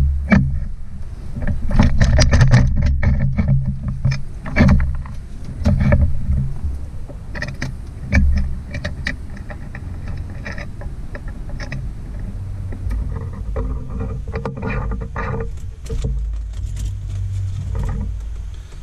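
Clicks, knocks and scrapes of hands adjusting a metal laptop-desk mount, thickest in the first half, over a low rumble.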